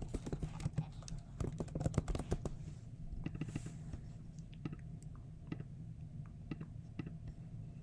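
Typing on a computer keyboard: a quick run of key clicks for the first couple of seconds, then scattered single clicks.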